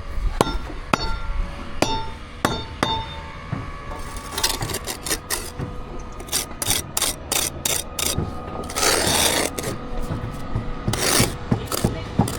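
Bricklaying hand tools working on the wall plate and its mortar bed: about six sharp metal taps, each with a brief ringing note, come roughly every half second. Then quicker clicks follow, with two longer scrapes later on.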